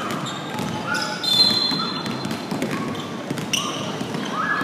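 Sounds of a basketball game in a gym: the ball bouncing on the court and players' voices calling. About a second in, a sharp high squeal lasts under a second and is the loudest sound.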